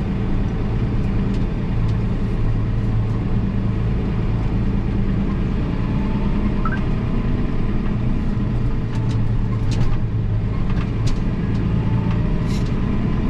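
Old Massey tractor's engine running at a steady, even speed, with a few brief clicks or rattles in the last few seconds.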